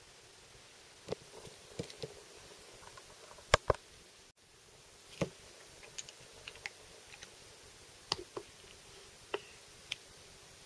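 Scattered light clicks and taps of a disassembled motorcycle brake caliper half and its small parts being handled, with two sharper knocks close together about three and a half seconds in.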